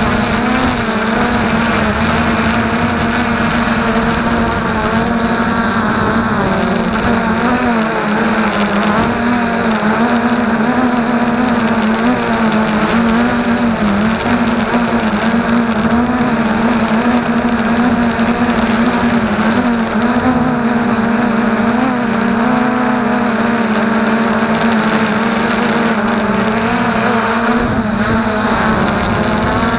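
FreeX Skyview quadcopter's electric motors and propellers buzzing steadily in flight, picked up by the onboard camera right beside them; the steady hum wavers slightly in pitch as the throttle changes.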